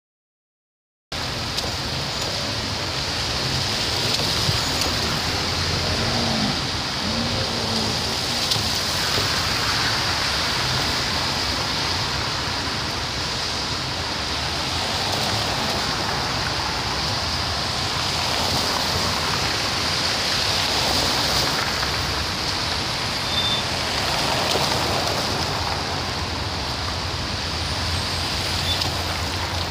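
Heavy city road traffic on a wet, slushy road: a steady hiss of tyres on wet asphalt over the low rumble of car engines. It cuts in about a second in.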